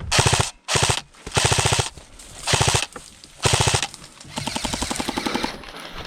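Airsoft guns firing full-auto: five short, loud bursts of rapid clicking shots in the first four seconds, then a longer, quieter burst.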